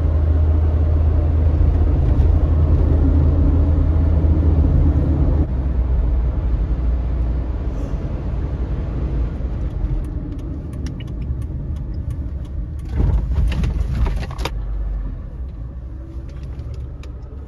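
Engine and road noise heard inside the cab of a Daihatsu Hi-Jet kei van while driving: a steady low rumble that eases after about five seconds as the van slows. Light clicks come in after about ten seconds, and a brief rushing noise about thirteen seconds in.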